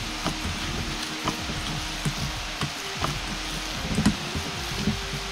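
Ground pork and tofu meat mixture being mixed by hand in a bowl to fold in panko and onion: soft, irregular wet squelches and slaps over a steady hiss, the loudest about four seconds in.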